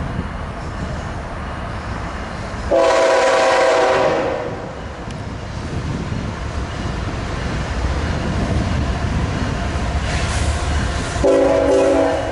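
Diesel locomotives of a CSX intermodal freight train approaching with a steady low rumble. The locomotive air horn blows one long blast about three seconds in and starts another near the end.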